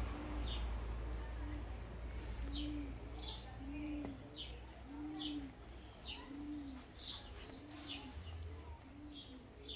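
A dove cooing: a steady series of low, single arched coos about once a second. Small birds chirp in short high notes between them.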